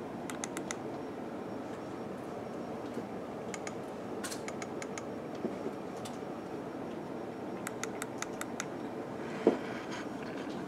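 Quick runs of light clicks, four to six at a time and a few seconds apart, over steady background noise, with one single louder knock near the end.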